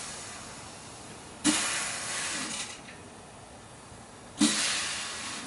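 Compressed air blown in short blasts into an automatic transmission's first-clutch apply passage during an air check: two hissing blasts about three seconds apart, each about a second long and starting sharply with a brief low knock. The knock is the thud of the clutch piston applying, a good sign for the clutch circuit.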